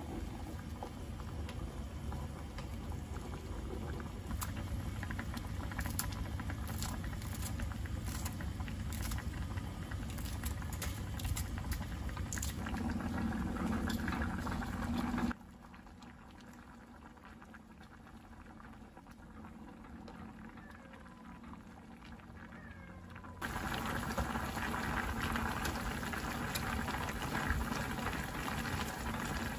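Home cooking sounds: liquid bubbling in a pot, with sharp clicks and taps of utensils. The sound changes abruptly in level twice, as between separate clips.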